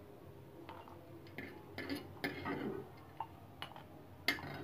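Light, irregular clicks and knocks, about seven of them, of a spoon against a kadhai and roasted makhana (fox nuts) as the nuts are scooped out of the pan.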